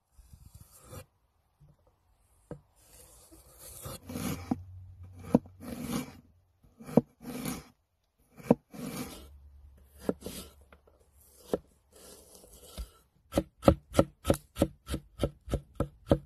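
Cleaver cutting fresh ginger root on a wooden cutting board: separate scraping and slicing strokes, then near the end a quick run of even chops, about four a second, as the ginger is diced.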